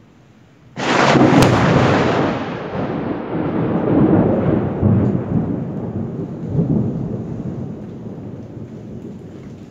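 Thunderclap: a sudden loud crack just under a second in, then a rolling rumble that swells several times and slowly dies away.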